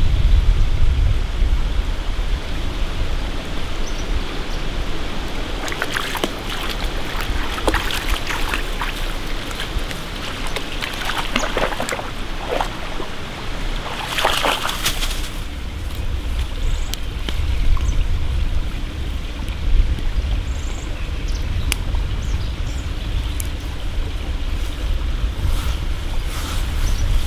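A shallow stream running over stones, with a dog splashing through the water several times, the biggest splash about fourteen seconds in.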